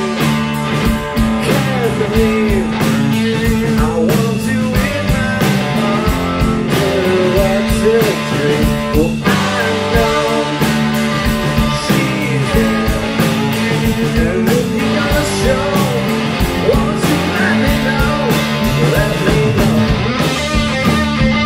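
Rock music with guitar over a steady bass line.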